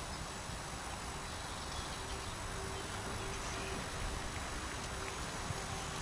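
Steady outdoor background noise, a even hiss with a faint low steady hum coming in from about two seconds in.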